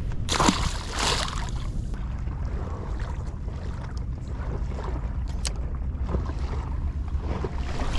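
A released queenfish splashes into the sea just after the start, over a steady low rumble of wind on the microphone.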